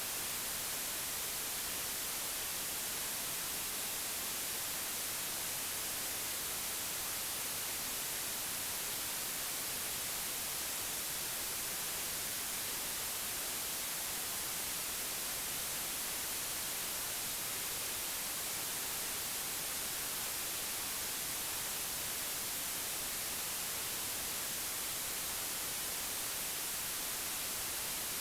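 Steady white noise: an even, unbroken hiss, brightest in the treble, with no change in level or texture.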